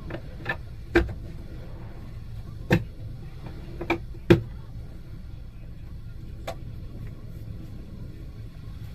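Rough open-sea water churning against a camera held at the waterline: a steady low rumble with six sharp, irregular knocks in the first seven seconds, the loudest a little past four seconds in.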